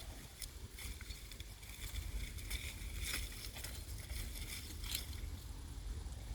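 Wind rumbling on the microphone, with intermittent rustling and crackling of leaves as alpacas pull at and chew them, several sharper rustles spread through it.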